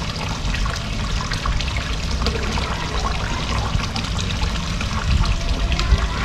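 Water trickling and splashing steadily into a koi pond.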